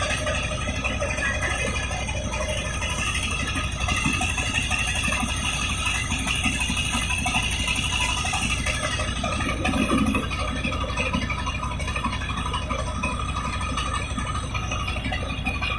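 Mobile rice huller running steadily: its engine and belt-driven hulling unit make a continuous mechanical rattle.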